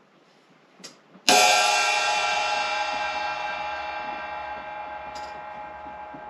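1974 Paiste Formula 602 16-inch flat ride cymbal struck once about a second in, then left ringing with many steady overtones that slowly fade. A faint tick comes just before the hit.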